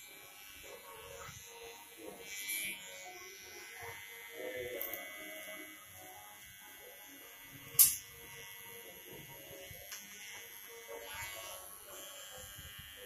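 Electric hair trimmer buzzing steadily as it cuts along the hairline, with one sharp click about eight seconds in.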